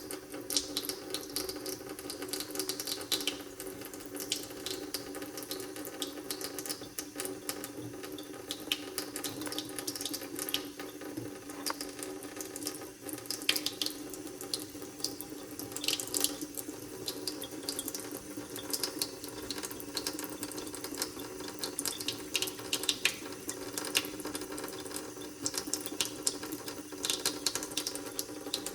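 Water running steadily from a tap into a sink, with irregular splashing spatters throughout.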